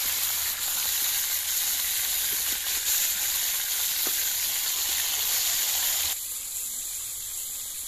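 Rohu fish steaks sizzling as they fry in hot oil in a wok (kadai): a steady, dense frying hiss. About six seconds in it drops suddenly to a quieter sizzle.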